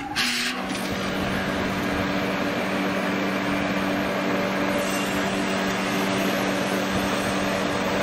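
Central air conditioner condenser unit starting up: a brief rush as it switches on, then running with a steady hum and an even rush of fan air. The condenser fan, on its newly replaced capacitor, turns normally.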